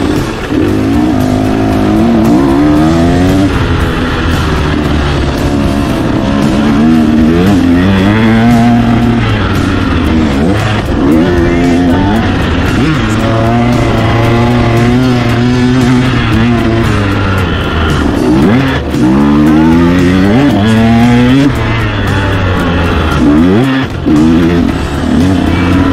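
Motocross bike engine heard from on the bike, revving up and easing off again and again as the rider accelerates, shifts and slows for turns around the track.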